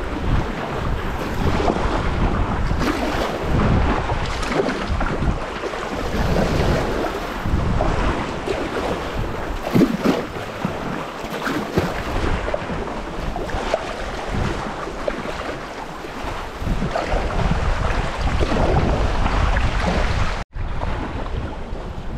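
Wind buffeting the microphone over choppy sea water sloshing and splashing around a sea kayak's hull, in irregular surges. The sound cuts out for a split second near the end.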